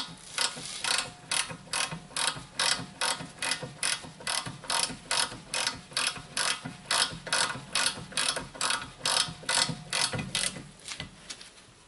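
Hand ratchet wrench clicking as bolts on the rear brake are tightened, an even run of about three clicks a second that stops near the end.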